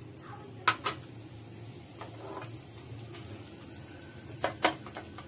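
Clinks of a steel spoon against a nonstick frying pan: two quick clinks about a second in and two more near the end, over a low steady hum.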